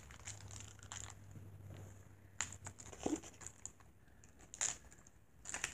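Faint rustling with a few soft crinkles and clicks as small plastic toys and their packaging are handled, over a faint low hum in the first half.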